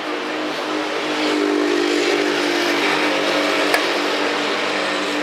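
A motor vehicle's engine hum swelling as it passes on the street and then fading, with one sharp click about three and a half seconds in.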